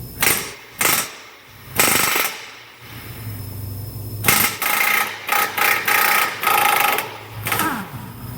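Pneumatic impact wrench hammering in several short bursts, then a longer broken run in the second half, loosening a wheel hub's nut with a 36 mm socket.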